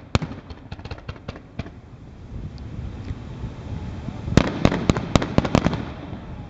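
Aerial fireworks going off. A few sharp bangs and crackles come in the first second and a half, then a rapid cluster of louder bangs about four to five and a half seconds in.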